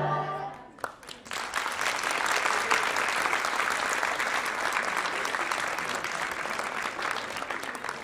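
An audience clapping, starting about a second in just after the music ends and slowly dying down.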